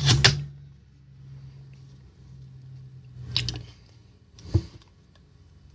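Handling noise as an 18650 lithium-ion cell is pushed into the spring-loaded slot of a smart battery charger: a scraping click as the cell seats, a softer rustle about three and a half seconds in and a sharp tap shortly after, over a faint low hum.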